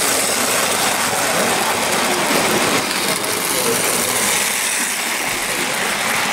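Tinplate O gauge model trains running on metal track, a steady mechanical whirr and rattle. Crowd chatter runs underneath.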